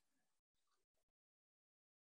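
Near silence: the sound track drops out completely.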